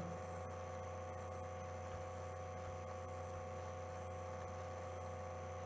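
Steady electrical hum with a few faint higher tones over a light hiss, unchanging throughout.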